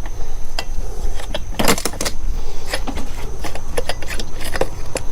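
Irregular metallic clicks and clinks of hand tools working on a chainsaw as its spark plug is taken out, with one louder knock about a second and a half in.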